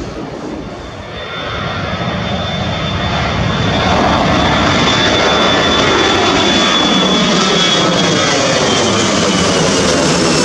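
Twin-engine jet airliner taking off at full thrust and climbing low overhead. The engine noise swells over the first few seconds, then holds loud and steady with a high whine above it.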